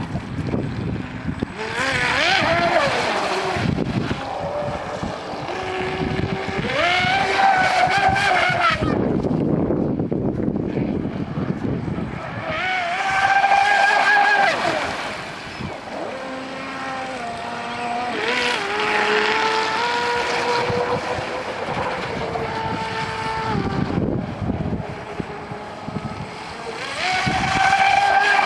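Brushless electric RC speedboat on a 4S LiPo, driven by an Eachine SS 200A ESC, running hard: a motor whine that climbs and falls in pitch with the throttle in about five loud runs, over the hiss of the hull's spray.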